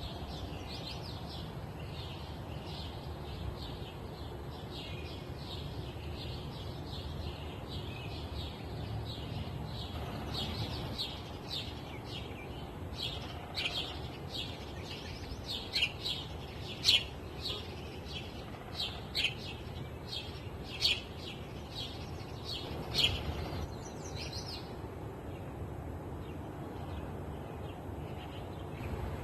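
Songbirds chirping: a steady run of short, quick chirps, with several sharper, louder ones near the middle, over a low rumble of wind.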